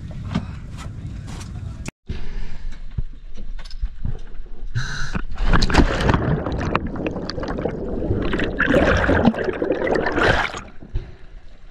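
A scuba diver going into the sea: splashing and a dense rush of bubbles around the microphone, loudest through the middle stretch and falling away near the end. A low rumble comes first, before a short break.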